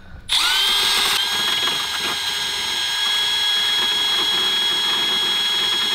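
Milwaukee cordless rotary tool with a cut-off wheel spinning up and running with a steady high-pitched whine as it cuts into the truck's plastic sub-dash.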